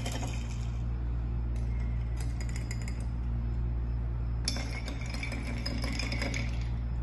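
A long spoon stirring iced tea in tall glasses packed with ice cubes: ice and spoon clinking against the glass in three spells, the last the longest, over a steady low hum.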